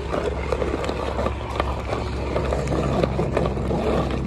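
A steady low engine hum, with many small clicks and rustles over it.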